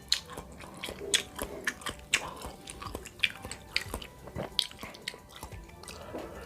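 A person chewing a mouthful of bakso meatball and rice, with frequent irregular wet mouth clicks and smacks.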